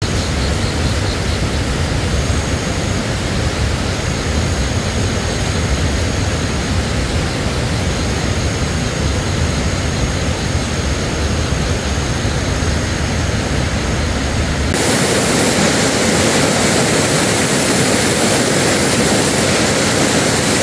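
Steady rushing noise with a deep rumble for most of its length. About fifteen seconds in it changes abruptly to a brighter hiss without the rumble.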